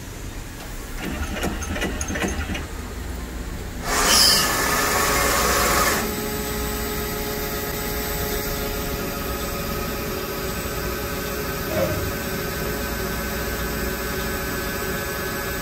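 Summit Smartcut 24-4 x 80 Series II CNC combination lathe starting up: a few clicks, then a loud rushing noise for about two seconds, after which the machine runs steadily with a whine of several held tones.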